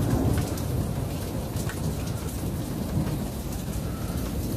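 Thunderstorm: a continuous low rumble of thunder with rain falling and pattering.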